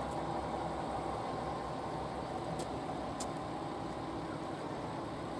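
Diesel railcar engine idling with a steady rumble and hum as the railcar slowly turns on a railway turntable. Two faint clicks about halfway through.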